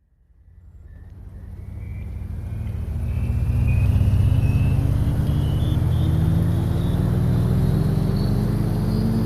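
A motor fading in and running loud and steady, its hum rising slowly and evenly in pitch as it speeds up, with a thin high whine climbing alongside it.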